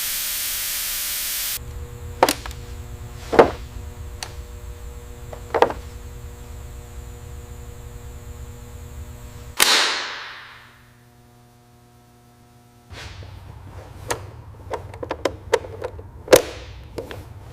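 Workshop handling sounds: scattered sharp knocks and clicks of tools and parts over a low steady hum. A whoosh rises and fades about ten seconds in, then a quieter gap, then a quicker run of clicks and taps near the end.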